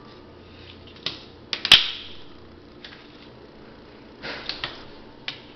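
Scattered sharp clacks and knocks of hard objects. Three come close together about a second and a half in, the last of them the loudest, then a quick cluster at about four seconds and one more just before the end.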